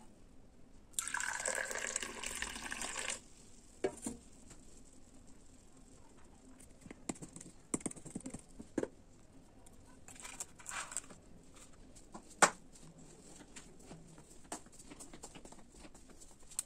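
Liquid pouring or running into a container for about two seconds, with a fainter second pour later, between scattered light clicks and knocks of kitchen utensils.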